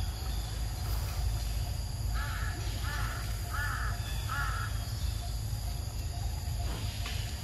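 A crow cawing four times in quick, evenly spaced succession, over a steady low rumble.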